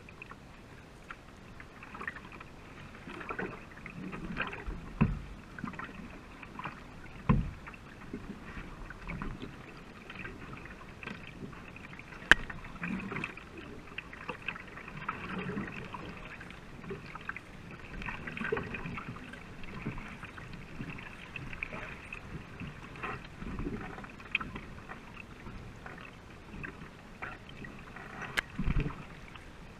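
Canoe paddles dipping and pulling through the water in irregular splashes, with water washing along the hull of a racing canoe. A few louder thumps stand out among the strokes.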